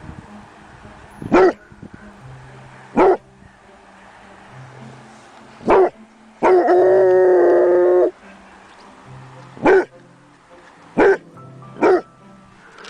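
Dog barking in single, separate barks, six of them spaced a second or two apart. A little past the middle comes one long held cry of about a second and a half. Soft background music runs underneath.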